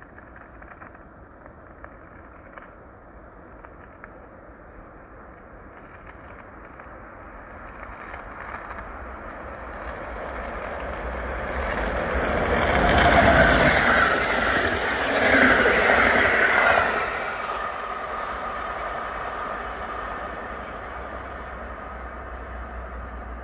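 EP07 electric locomotive and its Intercity passenger coaches passing at speed. The sound grows louder as the train approaches and peaks in two swells a couple of seconds apart, with a wavering high tone over the rush. Then it fades to a lower steady rumble as the coaches run by and draw away.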